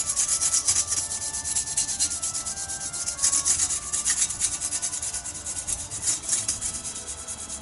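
Green abrasive scouring pad scrubbed in quick back-and-forth strokes over a new black electrocoated steel Austin Mini body panel, keying the surface so the etch primer will have something to bite onto.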